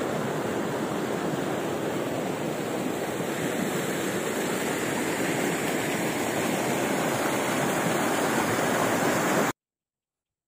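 River water rushing over rocks in shallow rapids, a steady rush that cuts off suddenly about nine and a half seconds in.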